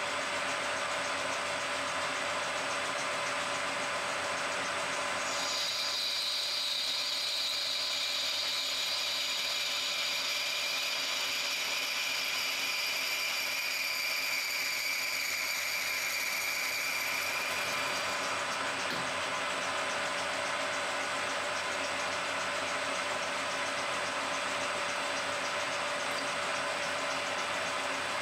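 Metal lathe running while a cutting tool works brass bar stock. From about five seconds in until about eighteen seconds a high whine rides over the steady machine noise as the tool cuts.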